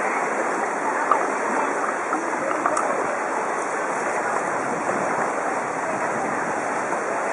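Steady wash of floodwater sloshing and churning around a bicycle's wheels as it rides through knee-deep water.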